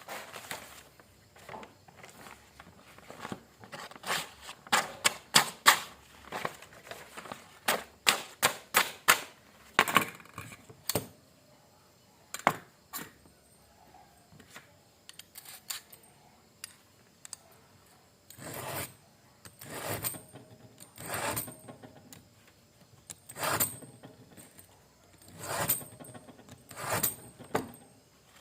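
Knife blade worked through a hand knife sharpener: a run of quick clicks and short scrapes, then six separate scraping strokes of about a second each near the end.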